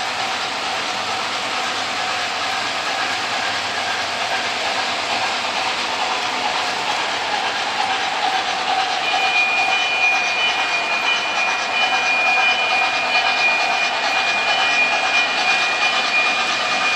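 O gauge electric model trains running on three-rail track: the steady clatter of wheels and hum of motors. About nine seconds in a steady high tone joins, with a faint pulsing tone above it.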